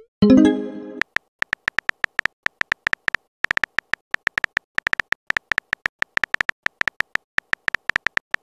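Phone-chat app sound effects: a short pitched chime in the first second as a reply message arrives, then rapid, irregular keyboard tap clicks, several a second, as a long row of emojis is typed into the message box.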